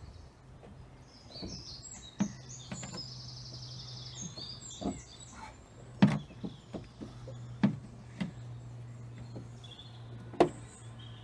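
Several knocks and clunks as an axe is worked into rubber Quick Fist clamps on a Land Rover door, over a steady low hum. Birds chirp through the first half.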